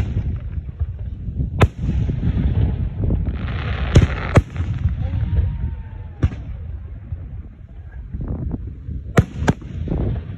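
Aerial fireworks going off: about seven sharp bangs at irregular intervals of one to three seconds, one pair close together near the middle and another near the end. Between them there is a low rumble, and a stretch of hissing crackle comes just before the middle pair of bangs.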